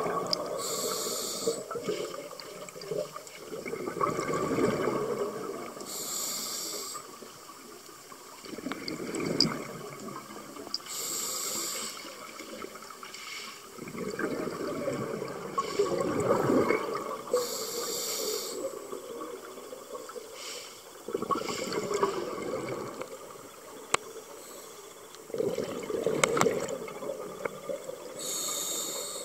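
A scuba diver breathing through a regulator underwater over several slow breaths. Each breath is a brief hissing inhale and a gurgling rush of exhaled bubbles, coming every five or so seconds.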